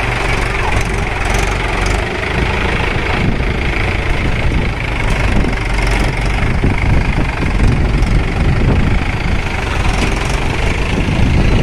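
Heavy diesel engine running steadily, with a few faint clicks over it.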